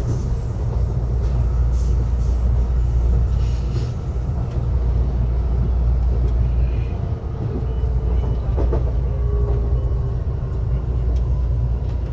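CPTM Line 8 commuter train running at speed, a steady low rumble of wheels on track and running gear heard from inside the passenger car. A faint whine comes in near the end, sagging slightly in pitch.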